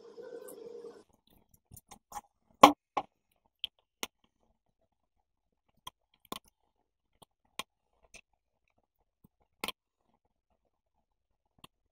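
Scattered short clicks and crisp taps of stiff coloured paper being handled and scissors snipping it, with the loudest knock about two and a half seconds in. A steady scratchy sound, like a pencil tracing on paper, stops about a second in.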